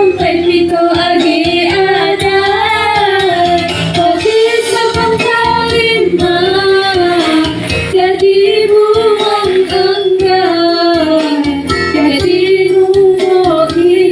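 Female voice singing a melody over a backing track, the pitch gliding and bending between held notes.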